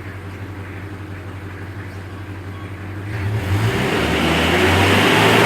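Mitsubishi L300's 4D56 diesel engine idling steadily, then revved up about three seconds in and held at higher revs, as the engine is tested for its black-smoke problem.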